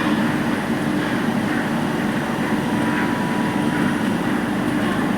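Steady running hum and rumble of machinery or an engine, holding an even level with no breaks.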